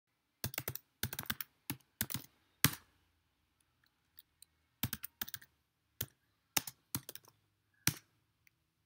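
Typing on a computer keyboard: quick, uneven runs of key clicks in two bursts separated by a pause of about two seconds, with one last faint click near the end.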